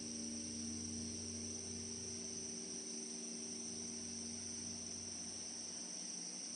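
Low hum of a large Korean Buddhist temple bell dying away after a strike, several deep tones fading out over a few seconds while one lingers faintly. Over it, the steady high chirring of insects.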